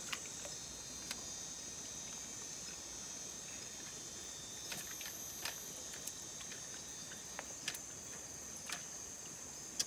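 Steady, high-pitched chorus of insects, with a few scattered faint clicks.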